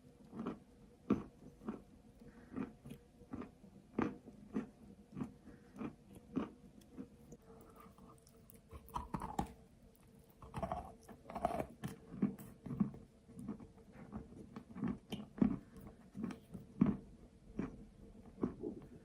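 Close-miked chewing of a hard, chalky clay bar: a steady run of dry crunches, about two a second, with a slightly busier stretch of crunching about halfway through.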